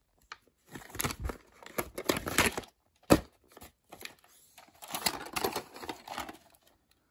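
A plastic VHS clamshell case and videocassette being handled: irregular rustling and clattering of hard plastic, with one sharp plastic click about three seconds in.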